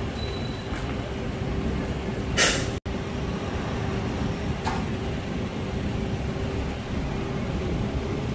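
Idling truck and vehicle engines running steadily with a low hum. About two and a half seconds in, a short, loud air-brake hiss from a truck breaks through, followed by an instant where the sound cuts out, and a fainter, shorter hiss comes a couple of seconds later.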